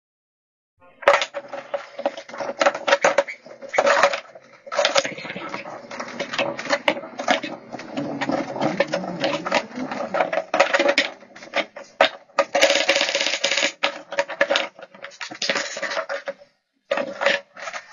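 Handling noise of wooden frame boards, bar clamps and a metal speed square on a workbench: an irregular run of clicks, knocks and rattles, with a few short pauses.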